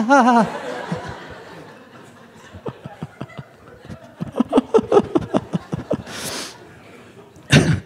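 A comedy-club audience laughing after a punchline. The laughter fades within a couple of seconds and goes on as scattered chuckles, and a short loud burst comes near the end.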